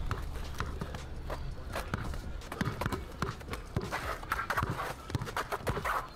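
A basketball being dribbled on an outdoor court: a run of quick bounces.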